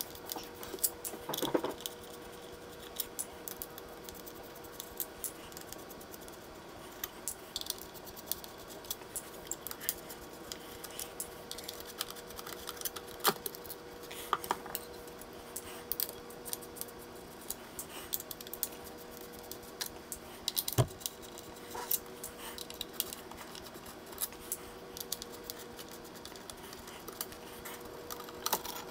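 Irregular small metallic clicks and clinks of an Allen key working the driver screws and of the screws and speaker drivers being handled as they are lifted out of the cabinet, over a faint steady hum.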